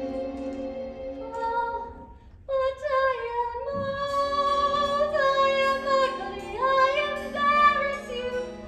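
A woman singing a slow musical-theatre ballad in long held notes, breaking off briefly about two seconds in before going on.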